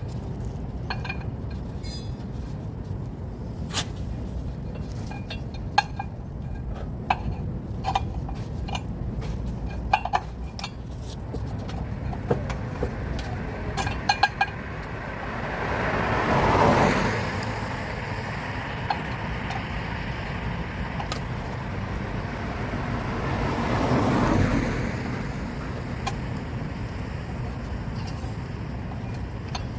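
Scattered sharp metal clinks and rattles from tire-change tools being handled, over a steady low traffic rumble. About halfway through, and again some seconds later, a vehicle passes, swelling and fading.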